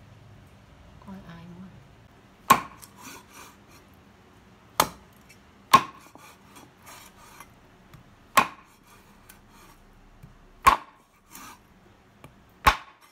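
Cleaver chopping a pork tail into rounds on a wooden chopping board: six sharp chops a couple of seconds apart, each with a brief ring, with small knocks and taps between.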